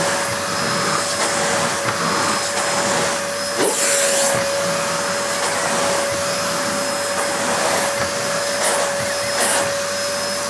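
Nilco S12 tub vacuum cleaner running with a steady motor whine over a rushing air noise, its floor tool being pushed over carpet while it grips the pile. Brief rushes of hiss about four seconds in and again near the end.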